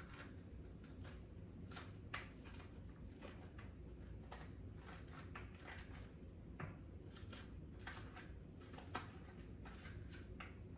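Faint scraping and scattered soft clicks of seeds and stringy pulp being scooped out of halved raw winter squash.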